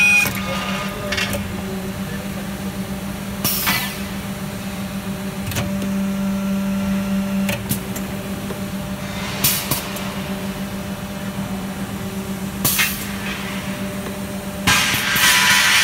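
Three-way NC punching machine running: a steady hum from its hydraulic power unit, louder for a couple of seconds in the middle, broken four times by short noisy bursts as the punch cylinders cycle. The last burst, near the end, lasts about a second.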